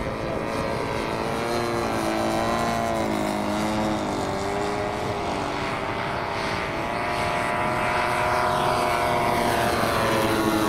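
Several radio-controlled scale model aircraft engines running together in flight. Their pitches drift up and down against one another as the models fly past, getting a little louder towards the end.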